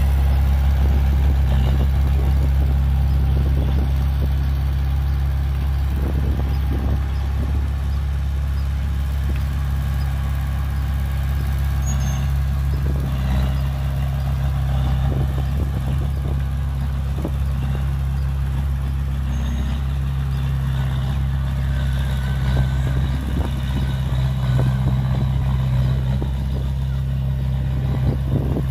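Diesel engine of a small Komatsu D20A crawler bulldozer running steadily while it works, with scattered clanks.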